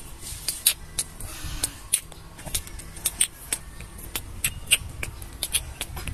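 Irregular sharp, high clicks and ticks, several a second, over a faint low rumble.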